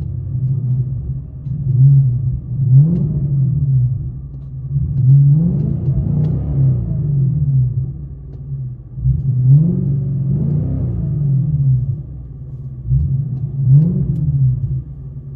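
A 2016 Infiniti Q70S's 5.6-litre V8, in park, revved about four times from idle, each rev rising and falling back to idle, heard from inside the cabin. Its dual exhaust runs Vibrant bottle resonators and muffler deletes in place of the stock mufflers and resonators, into 5-inch tips.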